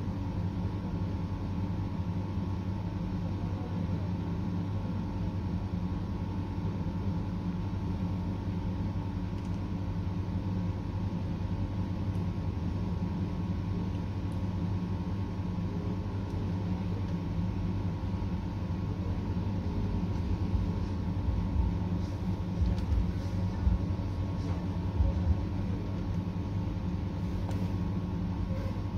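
A steady low hum throughout, with a few faint short taps in the last several seconds.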